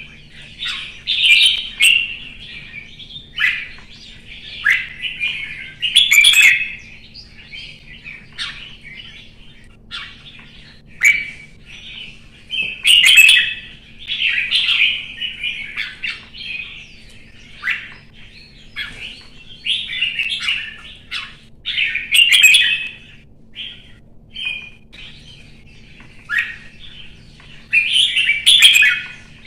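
Caged red-whiskered bulbul singing: short chirping phrases repeated every second or two with brief pauses between them. A faint steady hum lies underneath.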